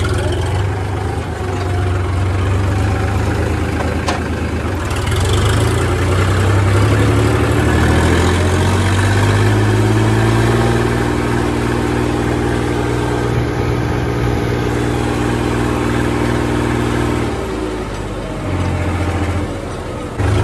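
Heavy diesel farm-machine engine running. About eight seconds in it revs up, holds the higher revs steadily for several seconds, then drops back near the end.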